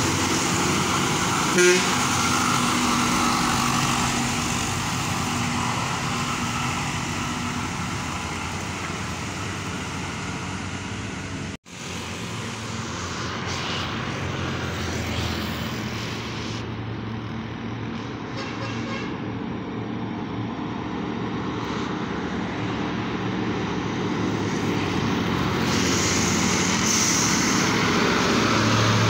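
Old heavy diesel trucks labouring past on an uphill road, their engines running steadily under load, with a short sharp blip about a second and a half in. The sound breaks off for an instant near the middle, and the engine noise grows louder as a second truck passes close near the end.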